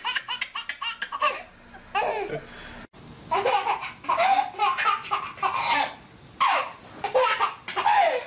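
Babies laughing hard. First comes a quick run of evenly spaced laughs; after a sudden break about three seconds in, a second baby laughs in repeated bouts.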